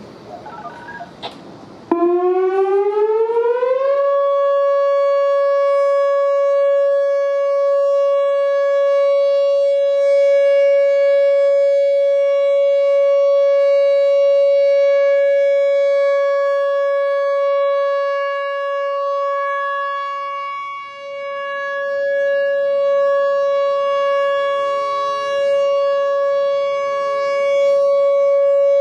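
Whelen WPS-4004 electronic outdoor warning siren sounding its monthly test. About two seconds in it starts and rises in pitch for about two seconds, then holds a loud, steady tone.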